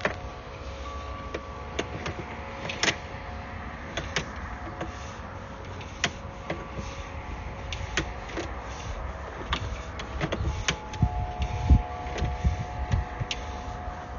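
Sewer inspection camera's push cable being pulled back through the pipe and onto its reel: irregular sharp clicks and knocks over a steady electrical hum, with a cluster of heavier thumps near the end.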